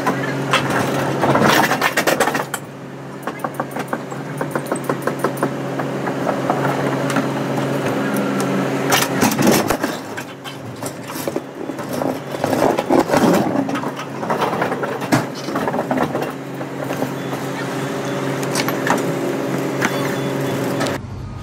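A pallet jack moving a loaded pallet across a box truck's diamond-plate steel floor during unloading: repeated clanks and rattles of metal on metal over a steady mechanical hum. The sound cuts off abruptly near the end.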